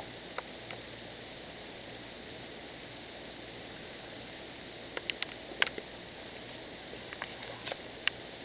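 Steady low hiss of room tone with a faint hum. A few faint clicks come about five seconds in and again near the end.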